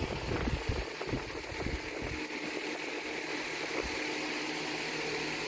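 Steady background hum and hiss, like a running fan or appliance, with a few irregular low rumbling knocks in the first two seconds.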